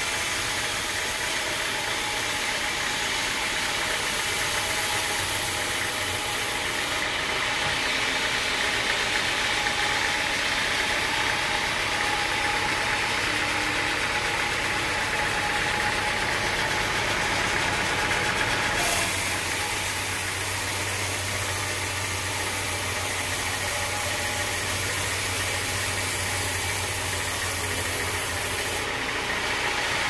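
Band sawmill running and sawing a teak log: a steady whir of the band blade cutting through the wood over the hum of the mill's drive. The tone changes abruptly about two-thirds of the way through, when a deeper hum comes in.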